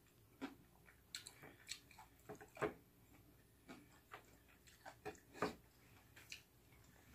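Faint eating sounds of a person chewing food, with short clicks and smacks scattered irregularly through, the strongest about two and a half and five and a half seconds in.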